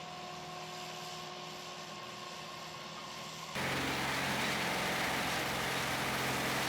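A faint, steady machine hum, then an abrupt cut about three and a half seconds in to a louder, steady heavy-machine engine running.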